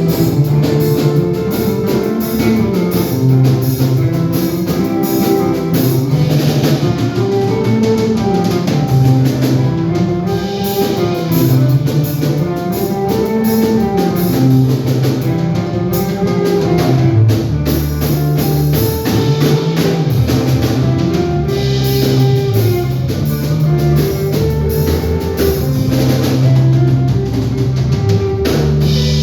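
A live band rehearsing a song, with a drum kit keeping a steady beat under guitar and a stepping low line of notes.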